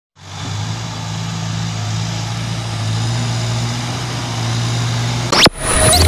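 An engine running steadily with a low hum. About five seconds in it cuts off abruptly and a short, loud, harsh burst of other sound follows.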